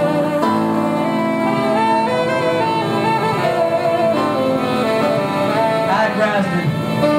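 A live band playing: saxophones with sustained, bending notes over drums, with a keyboard under them.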